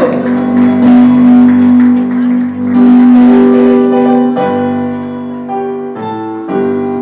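Keyboard playing slow, sustained chords: one long held chord, then several changes in quick succession in the second half.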